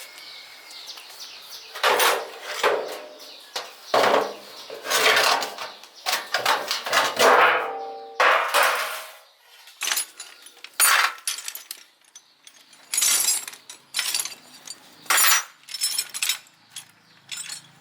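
Metal tools and parts clanking, scraping and rattling in irregular knocks as a machine is worked on by hand, with sharper short clinks in the second half.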